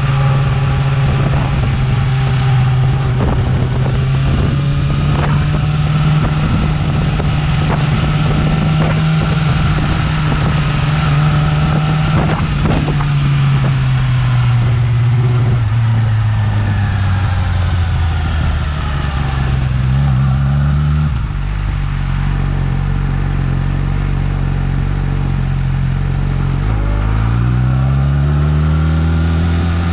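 Yamaha R6 inline-four sport-bike engine on its stock exhaust, running at a steady speed, then dropping in pitch about halfway through. After a brief blip it settles lower and rises again near the end.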